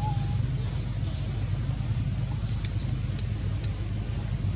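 Steady low outdoor rumble, with a few faint short high chirps and a few light clicks.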